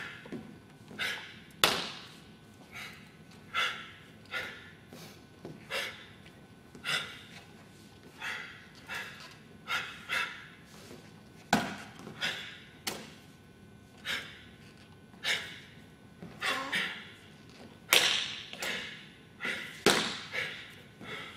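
A martial artist working through a Shaolin form: short slaps, thuds and foot stamps of his strikes and kicks on a hard floor, many paired with a forceful breath out, in an irregular series of about one to two a second. The sharpest cracks come about halfway and near the end.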